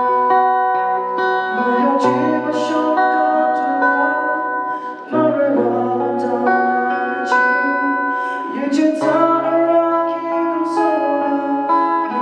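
A man singing a slow song while strumming and picking chords on an acoustic guitar.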